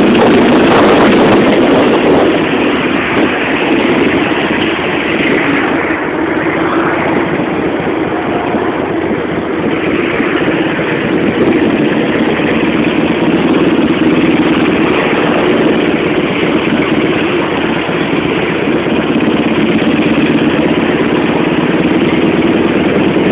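Motorcycle engine running steadily while the bike is under way.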